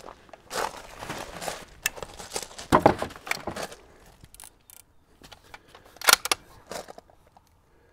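Rifle and gear handling: rustling and steps on wood chips, then knocks and sharp clicks as the rifle is set against a wooden barricade and brought into a kneeling firing position. The loudest knock is about 2.7 s in, with a further cluster of clicks about 6 s in.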